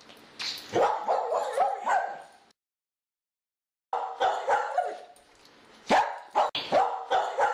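A dog barking and yipping in quick runs of short calls. The sound drops to dead silence about two and a half seconds in and starts again just before the four-second mark.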